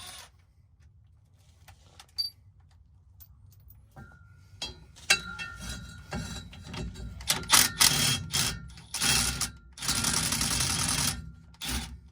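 Socket ratchet clicking in quick runs as drive-shaft bolts are loosened, starting about four seconds in and densest near the end, with a long fast run just before the end.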